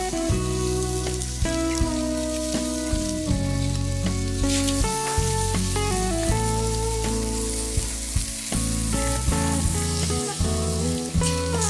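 Beef steaks sizzling on a charcoal grill, the hiss growing stronger after a few seconds, under steady background music.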